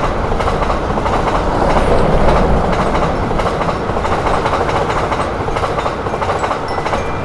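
A train running past on the rails, a steady loud rumble of wheels on track that holds throughout.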